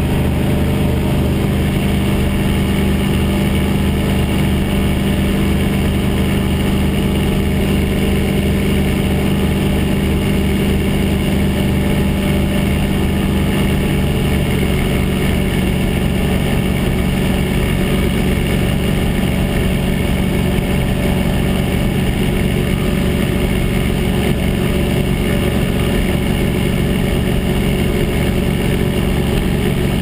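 Small Sevtec light hovercraft underway on open water, its engine and ducted thrust fan running at a steady cruising pitch: a loud, even drone with a strong low hum that does not change.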